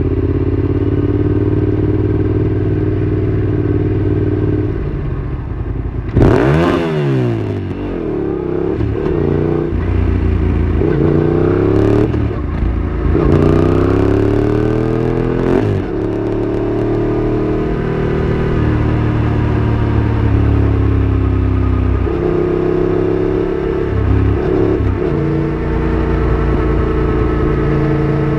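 Yamaha MT-07's parallel-twin engine heard from the rider's seat, its revs rising and falling through the gears. About six seconds in the pitch dips sharply and climbs again with a brief rush of noise.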